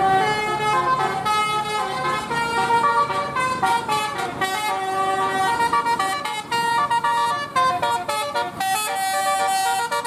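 Indonesian bus 'telolet' horn, a set of several air-horn trumpets, playing a tune: a quick run of loud held and stepping notes, several tones sounding together.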